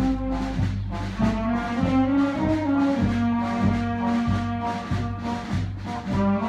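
Concert wind band playing a piece, the brass to the fore, over a steady beat of about two low strokes a second.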